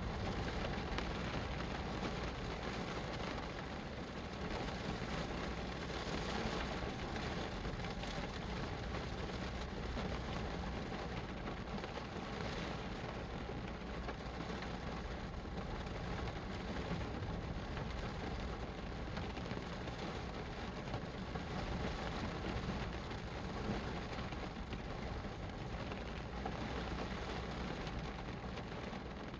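Steady rain falling, an even, unbroken hiss with a low rumble underneath.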